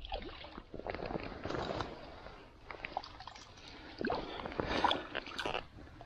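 Stream water splashing and sloshing in irregular bursts as a small hooked brown trout is played and brought to hand.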